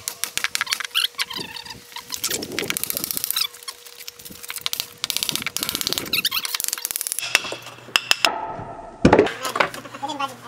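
Lumber and tools being handled: a run of knocks, scrapes and squeaks, with a quick rattle past the middle and a heavy thump near the end.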